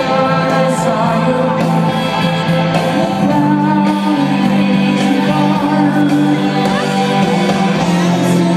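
Live rock band playing loud, sustained chords over the PA, heard from the audience; the chord changes about three seconds in.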